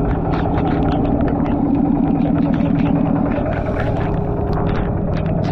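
Single-cylinder diesel engine of a two-wheel walking tractor running steadily under way, with a fast, even beat and rattle.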